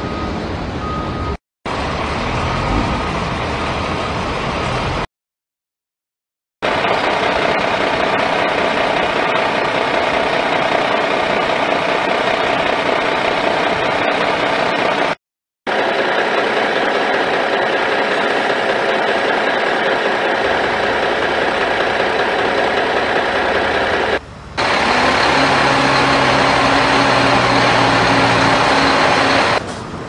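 Several separate clips of heavy construction machinery, cut one after another with short silent gaps: diesel engines running under load, first an excavator and then a dump truck. In the last few seconds a steadier engine note with a low hum comes in.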